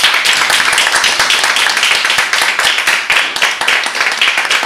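An audience applauding: many people clapping, loud and steady.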